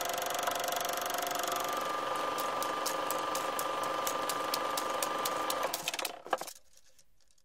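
A steady mechanical whir with a held whistling tone and a run of regular clicks, which breaks up and stops about six and a half seconds in.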